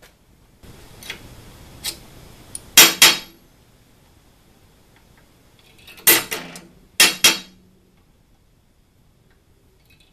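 Sharp metallic snaps of a center punch striking an aluminium bar to mark hole centres: two quick strikes about three seconds in, one a little after six seconds, and two more near seven seconds. A faint hiss with light taps comes before the first strikes.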